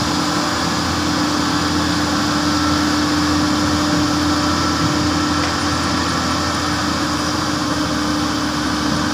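Diesel engine of a Hyundai 330LC excavator running steadily, with a constant low hum and no sharp knocks or changes.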